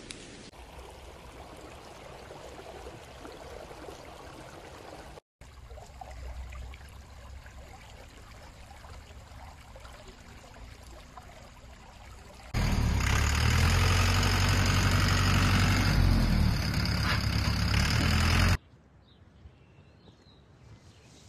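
A soft, even hiss, then for about six seconds a much louder steady rush of fast-flowing river water with a deep rumble, which cuts off abruptly.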